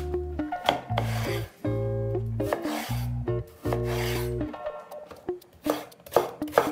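A chef's knife slicing an eggplant lengthwise on a bamboo cutting board, a rasping draw of the blade through the flesh, then quick chopping strokes against the board near the end as the strips are diced. Background music with sustained notes and a steady bass runs throughout.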